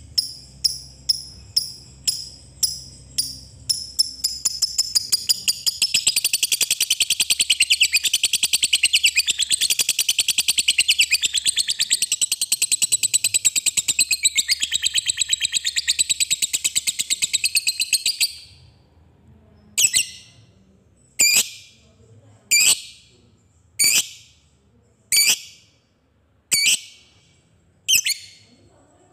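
Lovebird calling: sharp chirps about twice a second speed up into one long, fast chattering trill, the 'ngekek panjang' prized by Indonesian lovebird keepers. The trill lasts about thirteen seconds and stops abruptly, and single sharp chirps follow about every second and a half.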